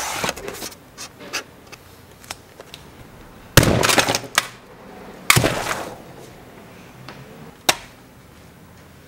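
Plastic VHS cassette clicking and clattering as it is handled, then two loud crashes about a second and a half apart as it is smashed, with pieces rattling after each, and one sharp click near the end.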